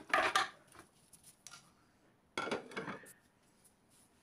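Raw bone-in mutton pieces being dropped into a metal pressure cooker: two short bursts of clattering, at the start and about two and a half seconds in.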